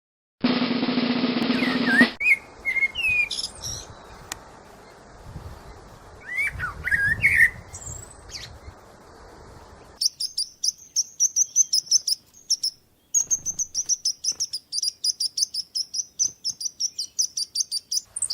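Birds chirping: a few scattered calls that rise and fall, then a fast run of short, high, evenly repeated chirps through the second half. It opens with a loud buzzy sound lasting under two seconds.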